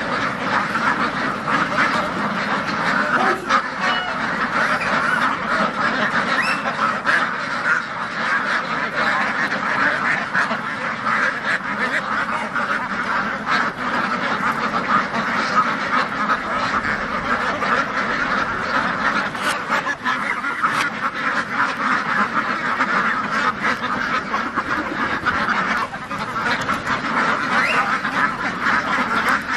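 A large flock of domestic ducks quacking continuously, many calls overlapping into a steady chatter.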